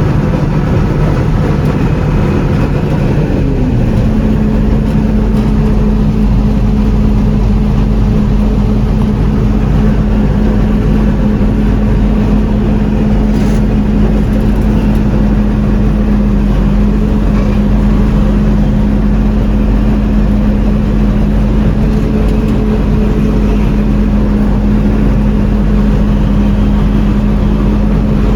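John Deere 4400 combine's 329 diesel engine running while the combine unloads corn into a truck. The engine pitch rises about three seconds in, then holds steady.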